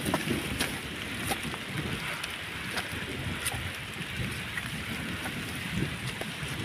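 Drizzling rain with wind rumbling on the phone's microphone, and scattered sharp taps throughout.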